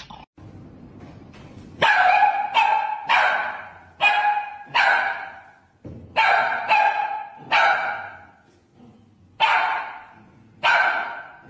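A small dog barking about ten times in short, sharp barks, often two in quick succession, with brief pauses between them.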